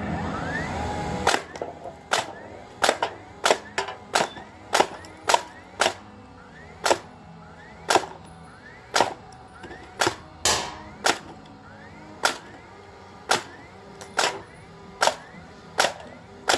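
Nail gun firing over and over: about twenty sharp shots, unevenly spaced at roughly one to two a second. They follow about a second of steady noise that cuts off suddenly.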